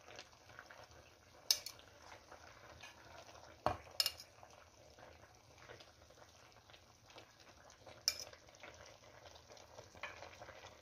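A metal utensil clinks sharply against the cauldron four times, two of them close together about four seconds in, while the cooked rabbit-and-pumpkin dimlama is stirred, over a faint steady sizzle from the pot.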